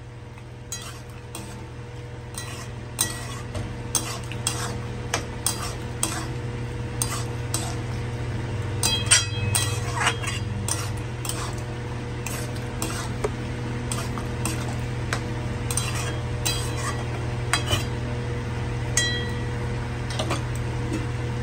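Metal spatula stirring and scraping chicken in masala in a kadai, knocking against the pan's side about once or twice a second, over a light sizzle of frying and a steady low hum.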